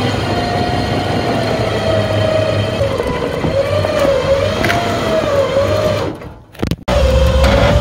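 A motor running with a wavering whine that drifts up and down over a steady low rumble, while a junk car is loaded onto a flatbed trailer. The sound drops out briefly about six seconds in.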